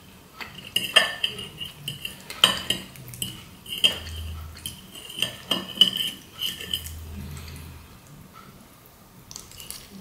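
Metal fork scraping and clinking against a plate while twirling spaghetti, a quick string of sharp clicks and scrapes with a slight ring. It dies down about three quarters of the way through, with a few more clicks near the end.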